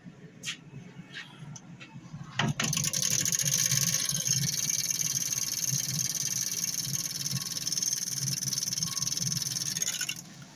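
A few light clicks, then a loud, steady rush of air starting about two and a half seconds in and cutting off sharply near the end, the sound of air being pulled hard into a workshop ventilation duct intake.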